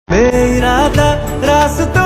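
Background music: a South Asian-style song with a gliding sung melody, starting abruptly at the very beginning.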